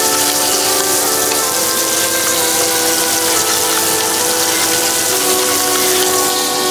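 Scotch fillet steaks sizzling in hot fat in a frying pan, a steady hiss, under soft background music of long held notes that change pitch every second or two.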